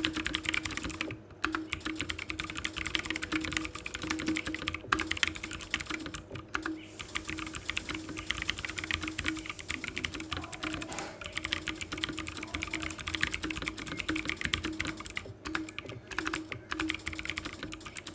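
Fast continuous typing on a Zifriend ZA646 mechanical keyboard with blue switches: a dense, noisy clatter of clicky keypresses, broken by a few brief pauses.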